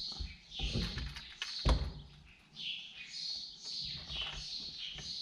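Small birds chirping over and over, short high chirps falling in pitch, with one sharp knock about a third of the way in.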